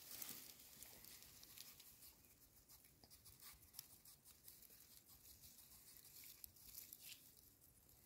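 Near silence with faint scattered crackles and soft ticks from a Temminck's ground pangolin licking ants off a clod of earth with its snout and long tongue.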